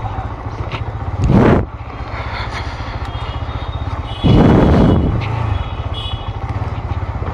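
Motorcycle engine running at low speed with a steady fast low pulse from its exhaust as the bike is ridden slowly into a parking spot. Two short loud rushing bursts break over it, one about a second in and a longer one about four seconds in.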